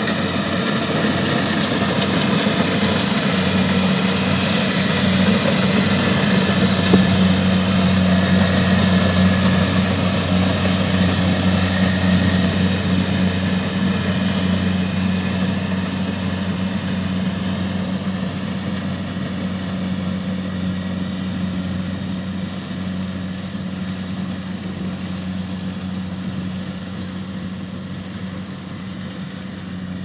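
Kubota DC70Plus rice combine harvester's diesel engine and threshing machinery running steadily with a low droning hum. The sound swells a little early on, then fades gradually through the second half as the machine moves away across the field.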